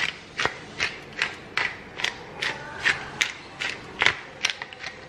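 Hand pepper mill being twisted to grind black pepper, a regular ratcheting click about two and a half times a second.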